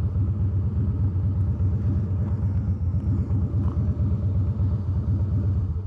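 Harley-Davidson Softail Deluxe's V-twin engine idling with a steady, throbbing low rumble.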